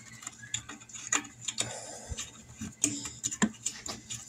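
Scattered, irregular small clicks and taps of fingers handling wiring and plastic connectors inside an opened inverter generator.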